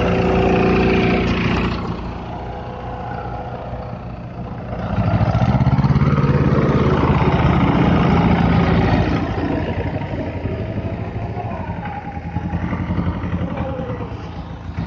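Small diesel tractor engine working in the field. Its level swells about five seconds in and eases after about nine seconds.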